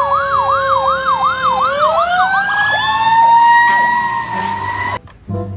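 Ambulance sirens: a fast yelp sweeping up and down about three times a second over a steady wailing tone. The steady tone climbs in pitch about two seconds in and holds after the yelp fades, then both cut off abruptly near the end.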